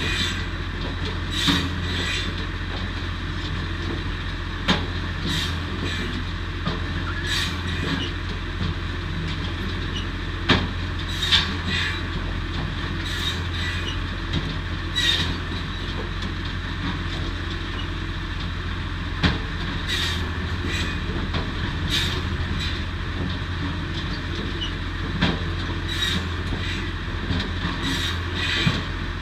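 Posch SmartCut 700 firewood saw running steadily off the tractor, with sharp irregular wooden knocks about every one to two seconds as logs are loaded and cut.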